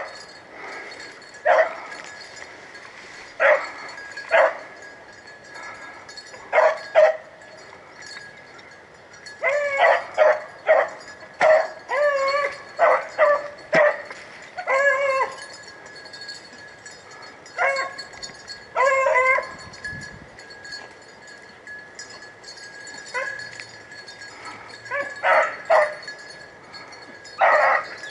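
Rabbit hounds baying in bouts of a few barks, with pauses between, while running a rabbit's trail.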